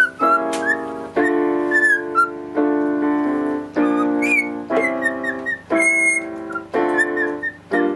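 A cockatiel whistling short, wavering notes over piano chords struck about once a second, each chord ringing out before the next.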